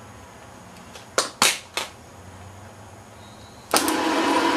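Three sharp clicks as battery cable clamps are put on, then near the end an electric motor starts with a sudden whir and runs steadily, spinning a VW Beetle manual transmission through a Lovejoy coupler. It runs pretty quiet, the sign that motor and transmission are well lined up.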